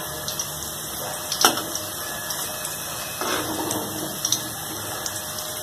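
Onion pakoras deep-frying in mustard oil in a kadhai: a steady sizzle, with a few sharp clicks of a metal spatula against the pan as the fritters are turned.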